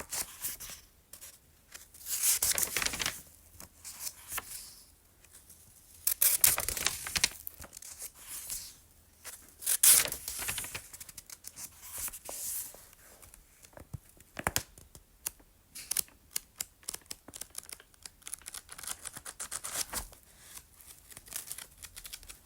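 Pages of a book being turned and flipped: separate papery swishes every couple of seconds, then from about halfway a fast ripple of many page flicks as the pages are riffled through.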